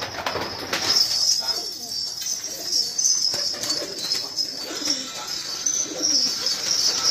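A flock of domestic pigeons cooing over one another, with wings flapping as a bird takes off and flies. A steady high chirring runs underneath.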